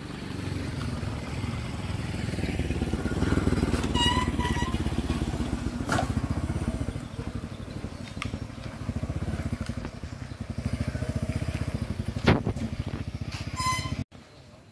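Small single-cylinder motorcycle engine of a tricycle running close by with a fast, even beat. A few short high chirps come about four seconds in and a sharp knock near the end, then the sound cuts off suddenly.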